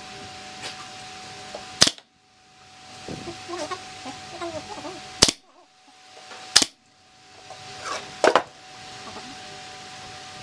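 Nail gun firing nails into MDF cabinet panels: about five sharp shots a few seconds apart, the last two in a quick pair.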